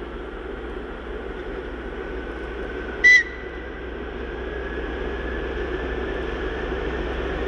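Two TEP70 diesel locomotives running under power, their engine drone growing steadily louder as the train approaches. About three seconds in there is one short, high-pitched whistle blast.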